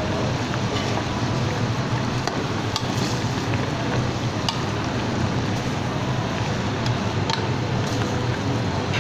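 Coconut-milk curry bubbling in an aluminium pot on a gas burner while a metal spoon stirs it, clicking against the pot now and then. Under it runs a steady hiss.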